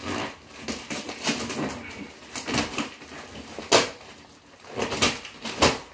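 Hands working at the packing tape and cardboard of a taped shipping box: irregular scratching, crinkling and short ripping noises, the loudest about three and a half seconds in.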